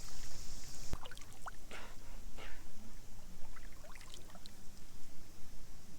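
Water splashing and trickling around a kayak, with a sharp knock about a second in and two short splashes soon after.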